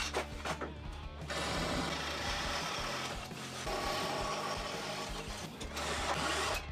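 Cordless drill boring through the metal rear frame of a ride-on tractor mower, enlarging the factory holes to 10 mm. It runs twice: a shorter run about a second in and a longer one starting about halfway through. Background music plays underneath.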